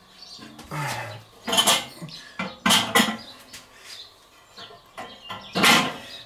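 Large round metal griddle plate being shifted and turned on a kettle grill's fire plate: a few separate metal scrapes and clunks as it is set into place, the loudest about five and a half seconds in.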